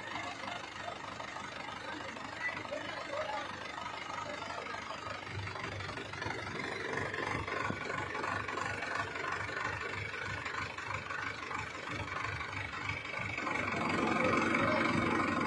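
Diesel engine of a JCB machine running steadily, growing louder near the end.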